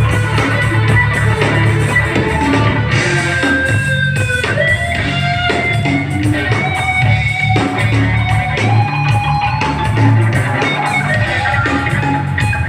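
Live rock band playing an instrumental passage: an electric guitar lead carries held notes, with a couple of pitch bends about four seconds in, over bass and drums.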